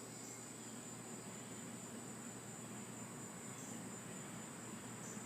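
Faint, steady, high-pitched insect drone, like crickets, holding one pitch throughout.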